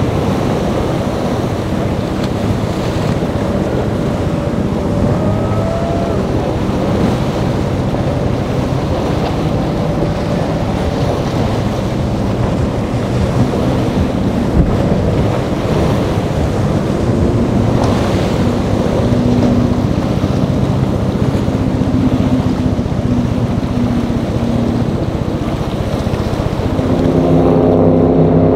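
Outboard motors of a Sea Hunt center-console boat running at speed through choppy inlet water, mixed with wind on the microphone and the rush of waves and spray. Near the end a louder, steady engine drone comes in as a Cigarette Cafe Racer powerboat approaches at speed.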